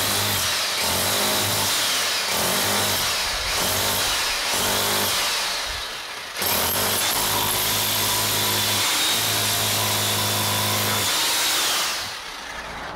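Titan TTB653SDS SDS hammer drill in chisel mode, its flat chisel bit hammering into a hard concrete block in runs. It breaks off briefly about six seconds in, starts again, and stops about a second before the end.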